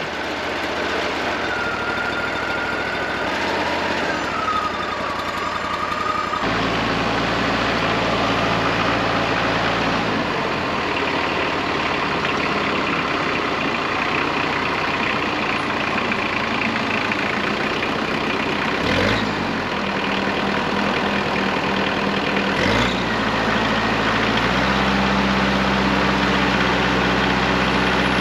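A heavy engine running at idle, its speed stepping up or down a few times, with a faint whine early on and two brief clatters in the second half.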